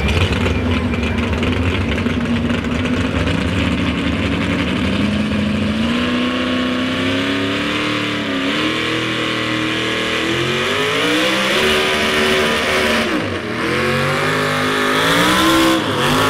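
Modified 4x4 pulling truck's supercharged engine, first held at a steady pitch, then revving hard from about six seconds in, the pitch climbing and dropping back several times as the truck launches into its pull.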